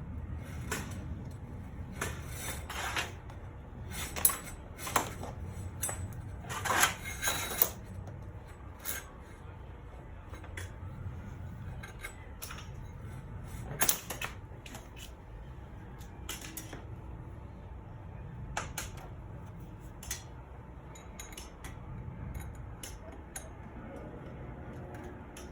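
Metal clanks and clicks of hand tools on garage door hardware while the lift cable and rollers are worked back into place. The knocks come thick and fast in the first eight seconds, then turn sparser.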